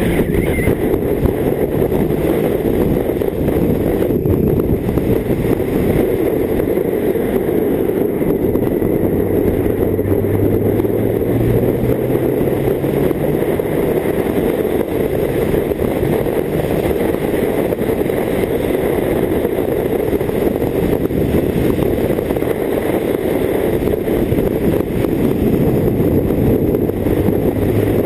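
BMW K1600GT motorcycle's inline-six engine running at a steady road pace, with wind rushing over the microphone. The engine note rises slightly a few times as the rider accelerates.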